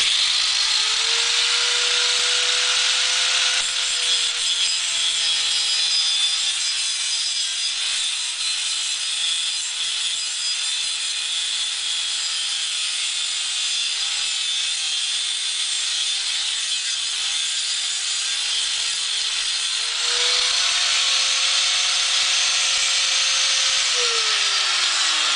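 Angle grinder with a cut-off disc spinning up and cutting into copper pipe: a steady high motor whine over a harsh grinding hiss, the pitch sagging a little under load. About twenty seconds in the load comes off and the whine rises again, and near the end the grinder is switched off and winds down, the disc too short to finish the cut.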